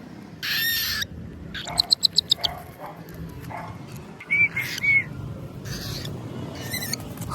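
Cockatiel calling: one drawn-out whistled call near the start, a quick run of about seven short chirps about two seconds in, then three short chirps around four and a half seconds.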